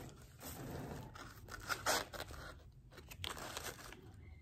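Plastic makeup packaging and shredded paper filler rustling and crinkling as items are pushed and shifted in a woven basket, with a sharper crackle about two seconds in.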